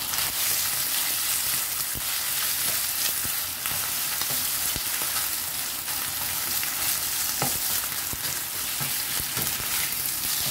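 Thin slices of marinated beef sizzling steadily as they fry in hot oil in a pan, stirred and turned with a spatula. A few light clicks of the spatula against the pan.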